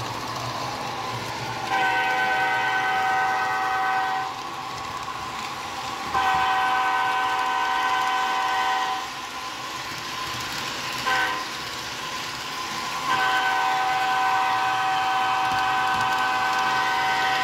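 Diesel locomotive horn from the sound system of an HO-scale EMD SD45-2 model, several notes at once, blowing the grade-crossing signal: two long blasts, one short, then a final long one. A steady running noise fills the gaps between blasts.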